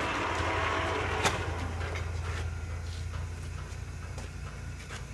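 Carroll-Jamieson 16 x 60 engine lathe running: a steady low hum with a gear whir that fades over the first two seconds, and one sharp click about a second in.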